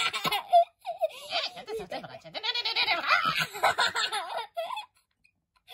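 A person's voice babbling made-up gibberish in a high-pitched, giggly character voice, until it stops near the end.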